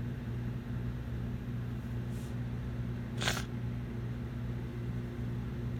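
Steady low electrical hum, with a faint short hiss about two seconds in and a louder, brief hiss about three seconds in.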